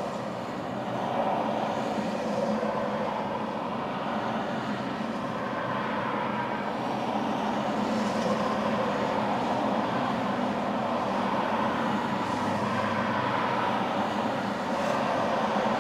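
Steady highway traffic noise, cars passing close by with tyre and engine sound.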